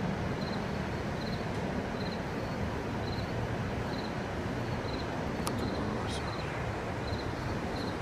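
A short high chirp repeating evenly about twice a second, like a cricket calling at night, over a steady low rumble. A couple of faint clicks come about two-thirds of the way through.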